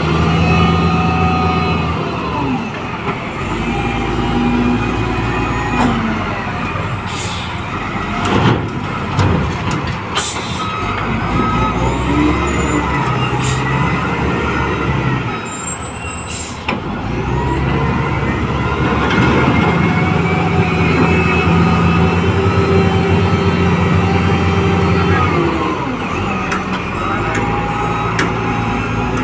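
LiuGong 848H wheel loader's diesel engine revving up and falling back in long swells as it works its bucket, loading iron ore into a dump truck. Several sharp knocks and bangs come through in the middle stretch, along with ore spilling from the bucket.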